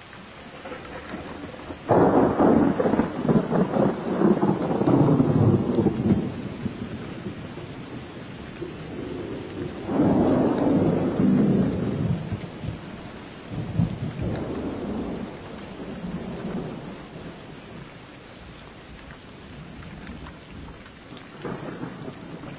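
Thunderstorm sound effect: loud rolls of thunder that start suddenly about two seconds in and again at ten seconds, then fainter rolls, over a steady hiss of rain.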